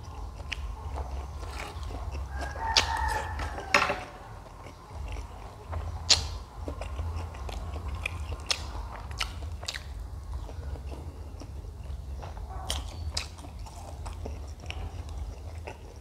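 Close-miked chewing and biting of instant noodles with sardine and egg, with scattered sharp mouth clicks and smacks over a low steady hum.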